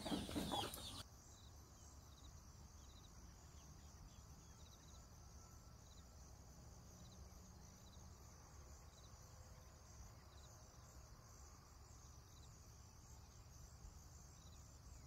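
Near silence: a faint, steady high hiss of outdoor background, after a brief louder sound in the first second.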